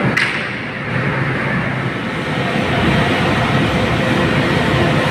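Large ventilation exhaust blower running: a steady, loud rush of air with a low hum underneath.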